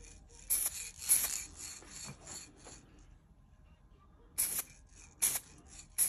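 Aerosol spray-paint can hissing in short bursts: a cluster of quick squirts in the first three seconds and a few more near the end, as a coat of paint goes onto the brake calipers.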